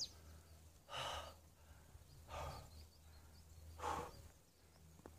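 A hiker's heavy breathing, out of breath from climbing uphill under a loaded backpack: three hard exhales about a second and a half apart.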